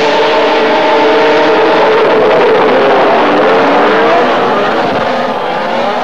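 Several racing snowmobiles at high revs as a pack passes, many engine notes at once. From about two seconds in their pitches rise and fall as they go by.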